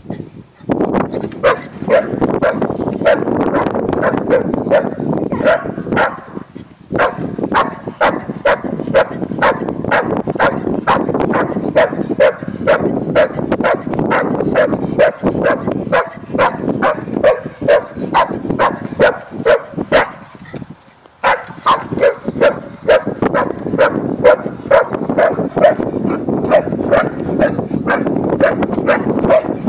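Shar-pei barking rapidly and persistently, about three barks a second, at a cat perched up on the fence. The barking breaks off briefly twice.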